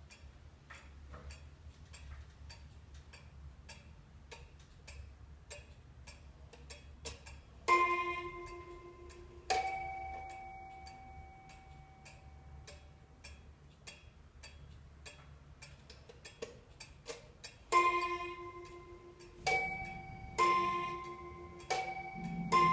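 Restored Gustav Becker pendulum wall clock ticking steadily, then striking its chime. Two ringing notes of different pitch sound about two seconds apart. After a pause, near the end, comes a run of strikes alternating between the same two notes.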